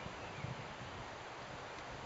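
Steady wind and rustling foliage, with irregular low buffeting of wind on the microphone.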